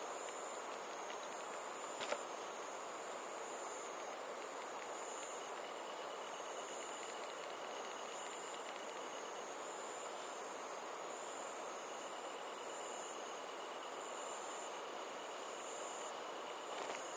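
Night chorus of crickets and other insects, a steady high chirring with a pulsing, shimmering band, over a steady low hiss. A single short click about two seconds in.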